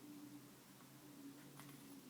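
Near silence: room tone with a faint steady low hum and a faint click about one and a half seconds in.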